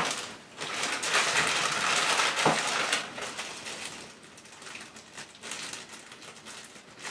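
Small clear plastic bag crinkling as it is handled and worked open, loudest in the first three seconds and then quieter, with a sharp click at the very start and a snap about two and a half seconds in.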